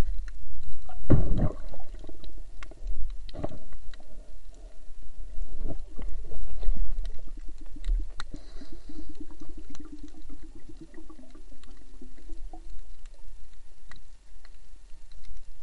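Muffled underwater sound picked up by a submerged camera: a steady low rumble of water movement, sharp knocks about one, three and a half and six seconds in, and scattered faint clicks. From about six to twelve seconds in there is a rapid buzzing pulse.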